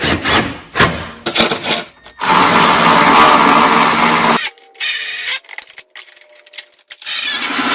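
Clicks and knocks of parts being handled, then a power driver running a bolt down in a steady burst of about two seconds, with shorter bursts after it. This is the fender deck being bolted down tight on a John Deere LA165 lawn tractor.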